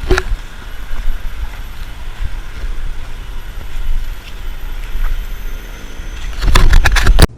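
Low, rumbling wind and handling noise on a small camera's microphone, with a sharp knock at the start and a loud burst of rustling near the end that cuts off abruptly.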